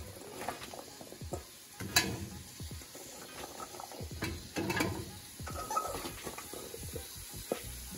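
Raw cubes of butternut squash being scooped by hand from a stainless steel bowl and dropped into a hot pot of curry base: irregular soft knocks and clatters of the cubes and the bowl, over a light sizzle.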